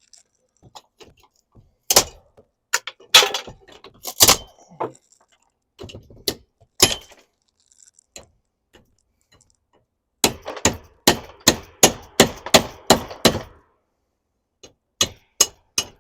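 Crowbar knocking and prying at a stuck camper fitting that won't come loose. A few scattered sharp knocks are followed, about ten seconds in, by a quick run of strikes at roughly four a second, then three more near the end.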